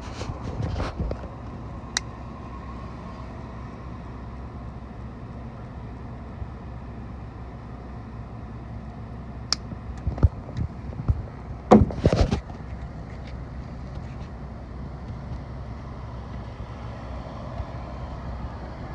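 Steady outdoor background hum, like traffic or a running vehicle, with a sharp click about two seconds in and a cluster of knocks and rustles of handling about ten to twelve seconds in.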